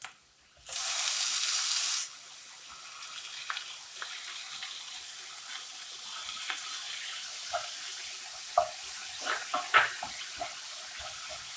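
Crushed ginger, green chilli, shallots and garlic going into hot coconut oil with browning onions: a loud burst of sizzling for about a second, then steady frying sizzle with the spoon scraping and clicking as the mix is stirred.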